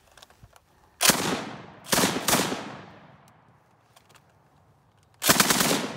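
A Browning Automatic Rifle (M1918, .30-06) firing: a single shot about a second in, then two more shots close together, each trailing off in a long echo. After a pause of nearly three seconds, a short rapid automatic burst starts near the end.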